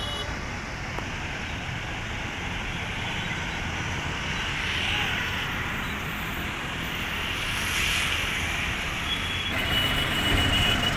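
Road traffic noise: a steady hum of engines and tyres with vehicles swelling past now and then, and a short high tone near the end.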